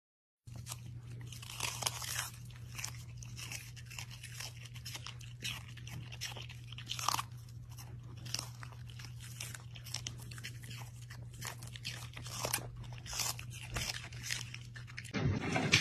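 Two small dogs chewing on celery sticks: a quick, irregular run of crisp crunches and gnawing. It starts about half a second in.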